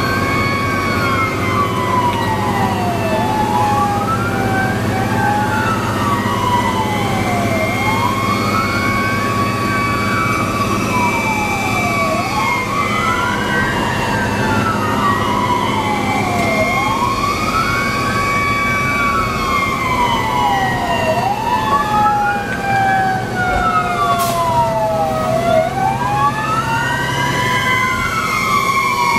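Fire engine sirens wailing while the engine drives on an emergency response, heard from inside the cab. Two wails overlap: one rises and falls about every four to five seconds, the other more slowly, over the steady drone of the truck's engine.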